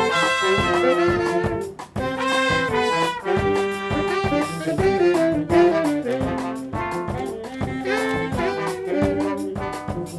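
New Orleans-style brass band of trombones, trumpets, saxophones and tuba playing a swing-funk tune over a drum beat, with horns holding notes in several parts. The music breaks off briefly just before two seconds in.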